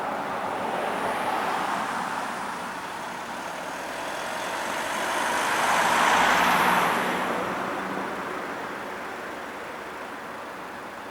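Road traffic passing, with one vehicle going by louder about six seconds in and then fading.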